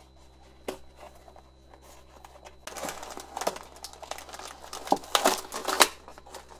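A cardboard box being pulled open by hand and its plastic-wrapped contents sliding out: faint handling at first, then from about three seconds in a burst of crinkling and crackling with a few sharp snaps of the paperboard flaps.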